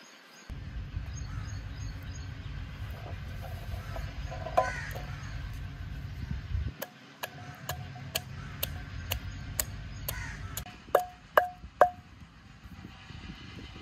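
Garlic cloves tapping into a clay mortar with light clicks, about two a second. Near the end a wooden pestle strikes the garlic in the clay mortar three times with loud, ringing knocks. Crows caw a couple of times in the background, over a low rumble in the first half.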